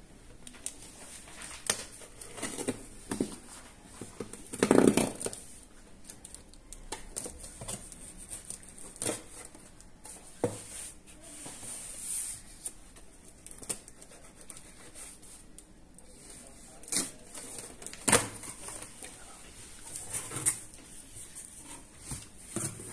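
Packing tape being cut and torn open on a cardboard shipping box, then the cardboard flaps being pulled open: irregular scrapes, rips and rustles, the loudest a longer rip about five seconds in.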